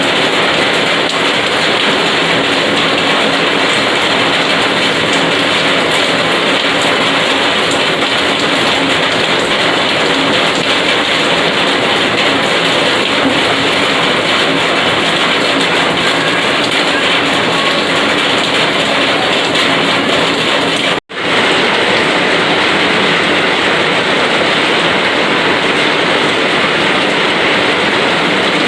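Heavy rain pouring steadily, a dense even hiss. The sound cuts out for a split second about three-quarters of the way through, then resumes unchanged, as at a splice in the recording.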